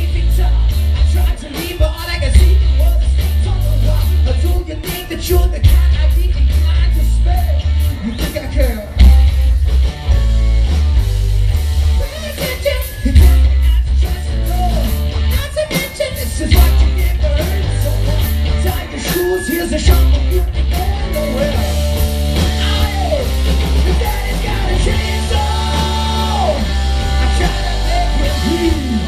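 Loud live rock band playing through the stage PA: distorted electric guitars, bass and drums, with a male lead singer.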